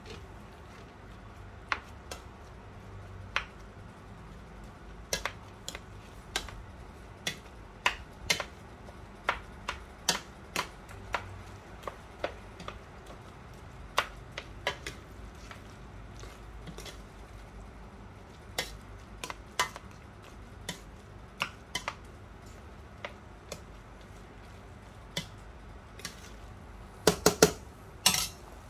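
Metal slotted spoon clinking and tapping against the sides of a stainless steel pot while apple pie filling is stirred: sharp, irregular clicks about once a second, with a louder run of clanks near the end.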